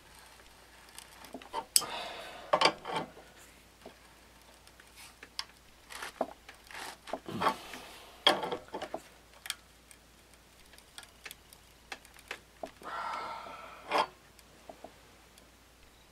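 Scattered metal clicks and knocks of a wrench and gear puller being worked on a Tecumseh HS40 engine's stuck crankshaft pulley, which does not budge, with two longer strained noises about two and thirteen seconds in.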